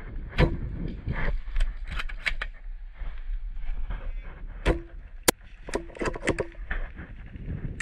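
Airsoft gunfire: an irregular scatter of sharp cracks and clicks from shots and BBs striking, some in quick runs of several, the sharpest a little over five seconds in, over a steady low rumble.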